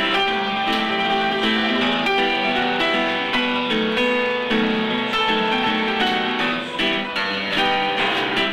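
Upright piano played live: a continuous stream of quick notes and chords.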